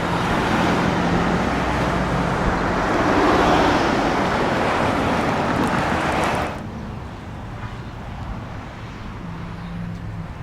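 Road traffic passing close by, a loud rushing of cars that swells in the middle, then drops suddenly about two-thirds in to a quieter, steady traffic hum.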